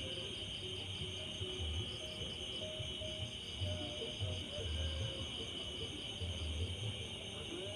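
Insects chirping steadily: a constant high trill with a faster, evenly pulsing chirp above it, over irregular low muffled thumps.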